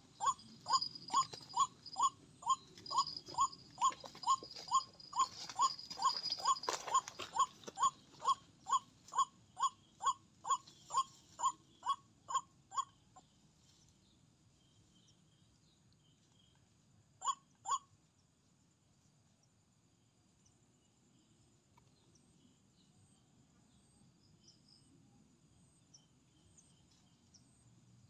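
Repeated calls of a white-breasted waterhen (ruak-ruak), about two a second, stopping about 13 seconds in; a short pair of the same calls follows a few seconds later. After that only a faint chirring of insects remains.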